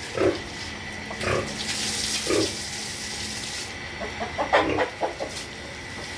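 Domestic pigs grunting in short, separate bursts, several times, with a cluster of grunts near the end, while water from a hose splashes onto the concrete floor of the pen. The water hiss is loudest from about a second in until nearly four seconds.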